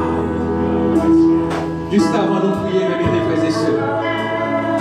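Live worship music played on electric bass and guitar, with voices singing along.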